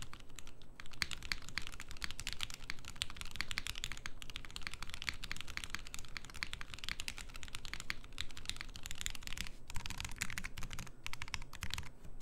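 FBTKL mechanical keyboard being typed on rapidly, a steady patter of keystrokes with brief lulls near the end. Its switches are dry-fitted, not yet soldered, into a solder PCB on a flexible plate.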